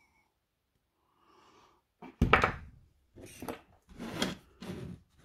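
A sharp knock about two seconds in, then three or four short scraping rustles as the open plastic battery housing is picked up and turned by hand on a wooden workbench.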